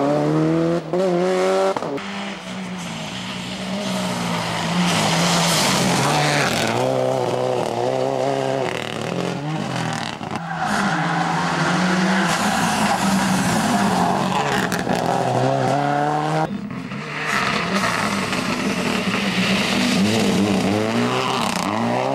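Subaru Impreza WRC rally car's turbocharged flat-four engine revving hard, its pitch climbing and dropping again and again through gear changes, with tyre noise. The sound breaks off and changes character a few times as one short clip cuts to the next.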